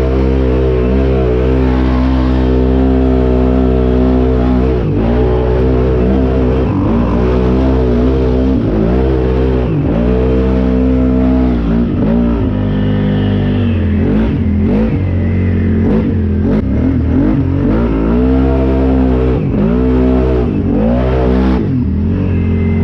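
ATV engine under throttle, revving up and easing off again and again. The swings come quicker in the second half.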